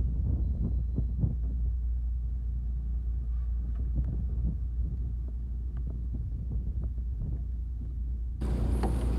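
Steady low rumble of a small fishing boat at sea, with irregular soft thumps. About a second before the end it switches abruptly to a louder, brighter rush of wind and water.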